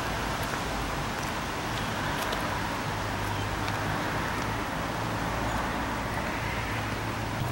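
Steady hiss of light rain with a few faint scattered drop ticks, over a low steady hum.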